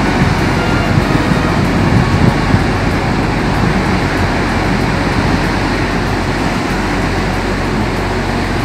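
Steady rushing noise of sea surf and wind, loud and even throughout with no distinct events.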